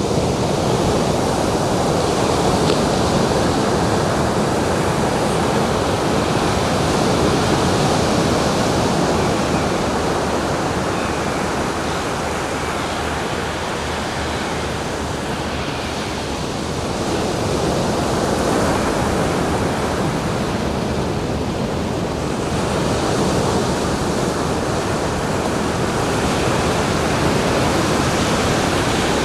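Ocean surf: a continuous wash of waves on a beach, slowly swelling and easing, somewhat softer around the middle before building again.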